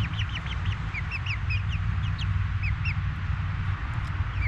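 Young chicks peeping: a rapid string of short, high chirps, several a second, over a steady low rumble.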